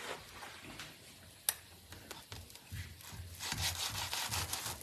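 Kitchen knife sawing through grilled, toasted sandwiches on a wooden chopping board: a quick series of rasping strokes starting about three seconds in, after a single sharp click about a second and a half in.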